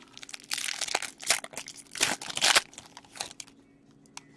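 Foil trading-card pack wrapper crinkling and tearing as it is ripped open by hand, in a run of rustling bursts lasting about three seconds and loudest about two seconds in.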